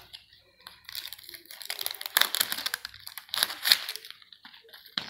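Wrapping on a L.O.L. Surprise toy ball crinkling and tearing as it is peeled off by hand, in three or four rustling bursts, with a sharp click near the end.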